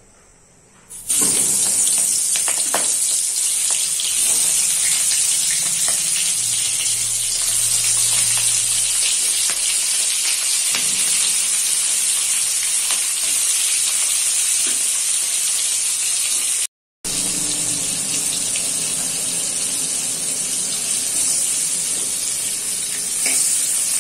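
Prawns frying in hot oil in a wok: a steady sizzle that starts about a second in, with a short dropout about two-thirds of the way through.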